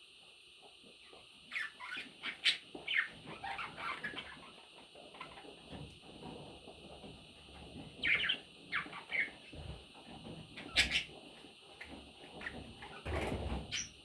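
Budgerigar chicks chirping in short, scattered bursts, mixed with rustling and a few low thumps, with the busiest stretch near the end.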